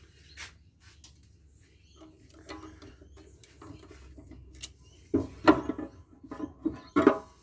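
Metal parts clicking and clattering as a solar inverter is taken apart by hand: light scattered clicks, then a louder run of ringing metal knocks and rattles about five seconds in, with one more near the end.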